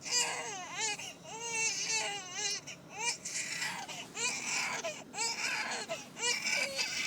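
Human baby crying in short, wavering wails with quick breaths between them, starting off fairly slow and subdued.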